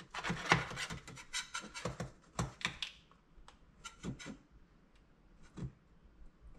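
Knife blade scraping around the inside wall of a metal springform pan, loosening a baked pie crust from the side. Irregular short scrapes and taps, busy for the first three seconds and sparser after.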